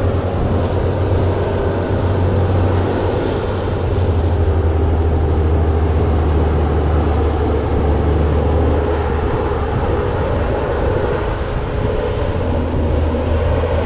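Fendt tractor's diesel engine running hard and steady under load, a deep continuous drone, as it hauls a red tractor and a loaded lorry through a soft beet field.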